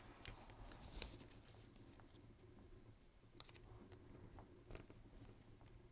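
Near silence, with a few faint, scattered clicks and rustles of paper strips being handled and pressed down onto a card.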